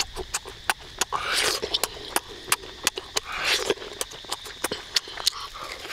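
Close-up eating sounds: a boy chewing roast duck meat, with wet lip smacks and mouth clicks several times a second. Two longer noisy rushes, about a second in and again past three seconds, as he sucks in a strip of meat.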